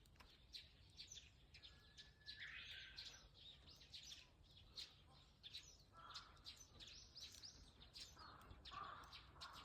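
Faint wild birds chirping: many short, quick chirps and trills, with one held whistled note about two seconds in.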